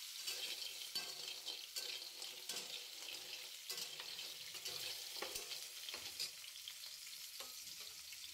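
Rui (rohu) fish steaks sizzling as they shallow-fry in hot oil in a frying pan, with small pops and light ticks of a flat spatula nudging and turning the pieces.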